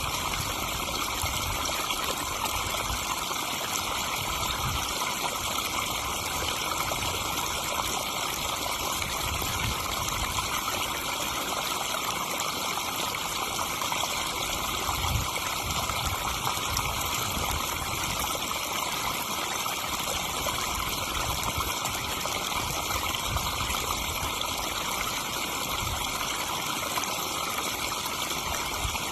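Backyard pond waterfall splashing and trickling steadily into the pond.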